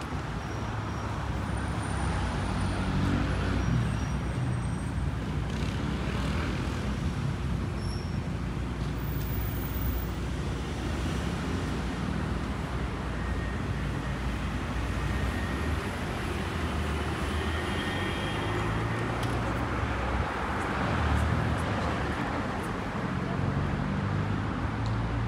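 Steady city traffic noise: cars running along a wet street, a continuous low rumble with tyre hiss.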